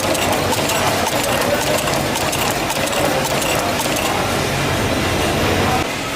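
A workshop machine running steadily with a fast, even mechanical clatter.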